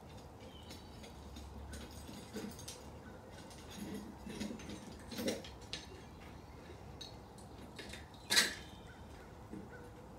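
Steel crucible lifting tongs, hung on a chain, knocking and clinking against the crucible and furnace rim as they are lowered and clamped around a crucible of molten metal. A few scattered metallic knocks, the loudest about eight seconds in.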